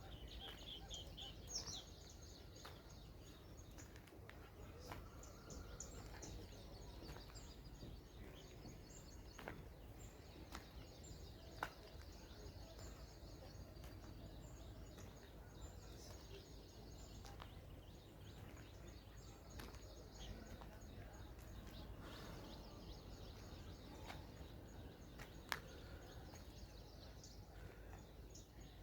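Faint background ambience: small birds chirping high over a low steady rumble, with a couple of sharp clicks.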